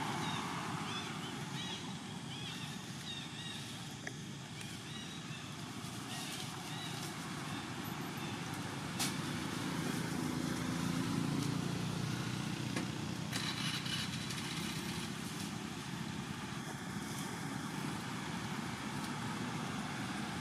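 Steady outdoor rumble of vehicle engines with faint voices, swelling as a louder engine passes about halfway through.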